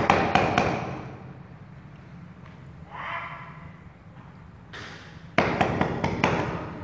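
A stick pounded down into a green bamboo tube to pack the chicken in tight: a run of sharp knocks, about three a second, at the start and again about five seconds in, with a short breathy sound in between.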